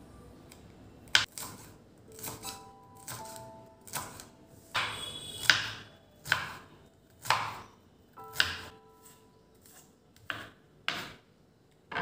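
Kitchen knife chopping garlic, green chillies and onion on a wooden cutting board: a dozen or so sharp, irregularly spaced strokes.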